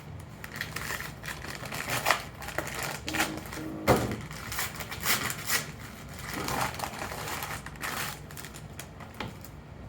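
Irregular clicking, rattling and rustling of objects being handled by hand, with one sharp knock about four seconds in. A faint steady low hum runs underneath.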